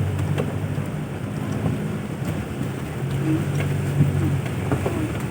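Toyota Land Cruiser Prado's 1KZ-TE turbo-diesel engine running steadily on an off-road drive, with a low hum, tyre and wind noise, and a few scattered knocks and rattles from the body.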